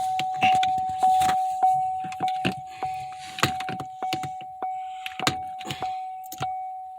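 Repeated sharp taps at roughly two a second as a screwdriver is worked against the small metal retaining pin of a Buick Verano shifter knob to drive it out, over a steady high tone.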